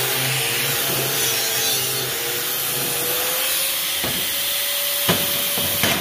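Corded angle grinder with a wire wheel scrubbing paint, rust and dirt off a steel corn head part, its motor running steadily under load. About four seconds in the wheel is lifted off and spins free at a slightly higher pitch, and a few knocks follow near the end.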